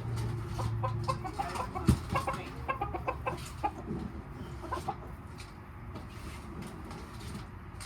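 Chickens clucking in a quick run of short notes, busiest in the first half, with a single knock about two seconds in.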